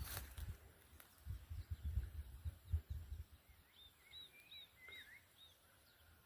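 A bird singing a quick series of about five short, high, arched chirps with a few lower notes under them, about four seconds in. Low uneven rumbles fill the first three seconds before the song.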